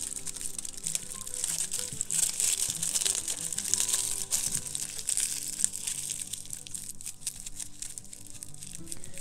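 Aluminium foil crinkling and crackling irregularly as hands squeeze it around branches, over soft background music.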